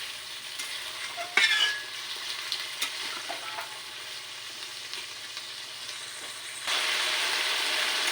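Chicken and spice paste frying in a pan with a splash of water, sizzling steadily while it is stirred, with a few sharp clinks. About two-thirds of the way through the sizzle suddenly gets louder.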